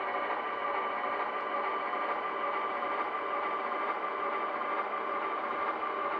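HO scale model locomotive running slowly as it shoves a cut of cars into a yard track, giving a steady, unchanging drone.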